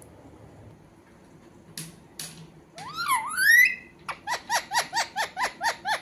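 A pet parakeet calling: after two short scratchy sounds, a bending, rising whistled squawk about three seconds in, then a quick run of about eight short falling chirps, roughly five a second.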